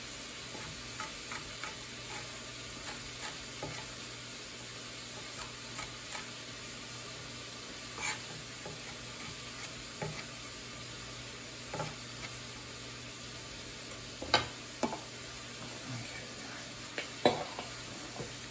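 Sliced onions sizzling in a pan over medium-high heat, a steady hiss as they sweat down. Scattered sharp knocks sound over it, a few louder ones near the end.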